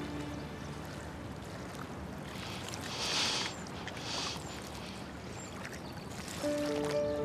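Harbour water lapping gently against the quay, with two brief louder washes about three and four seconds in. Background music comes back in near the end.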